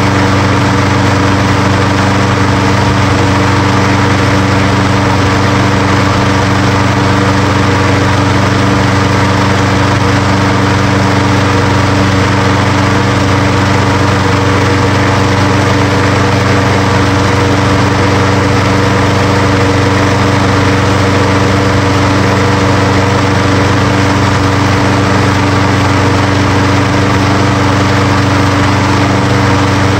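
Briggs & Stratton 6.75 hp single-cylinder lawn mower engine running steadily at a constant speed, on its replacement ignition coil.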